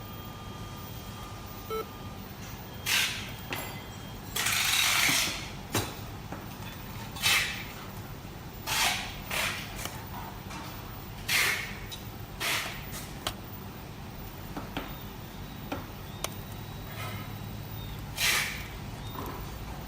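A string of about ten short scrapes and rustles, irregularly spaced and each under about a second long, over a steady low hum: the sound of parts being handled during assembly.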